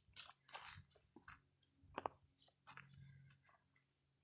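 Footsteps crunching and rustling through dry leaves on a trail, in uneven bursts with a few sharp snaps.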